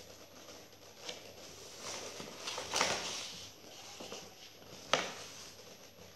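Stiff black chart paper rustling and crinkling as it is wrapped and pressed around a box by hand, with a few sharp crackles, the loudest about three seconds in and another about five seconds in.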